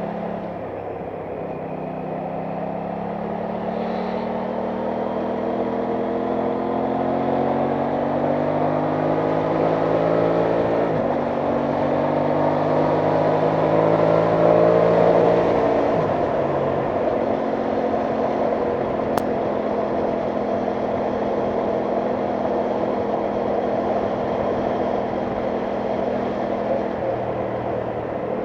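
Aprilia Tuono 660 Factory's parallel-twin engine on the move. The engine note climbs slowly for about fifteen seconds, dips briefly around sixteen seconds in, then holds steady at cruise. Wind noise rushes over the microphone throughout.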